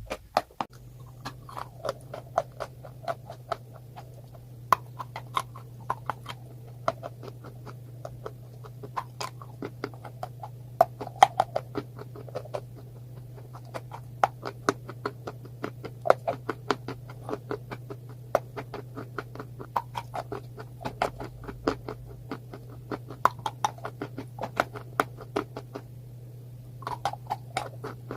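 Close-miked ASMR crunching: a person biting and chewing something crisp, giving a rapid, irregular string of sharp crunches. A steady low hum sits underneath from about a second in.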